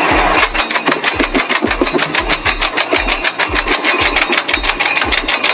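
Wood chipper running with a rapid, even clatter of about eight clicks a second over a slower low thump.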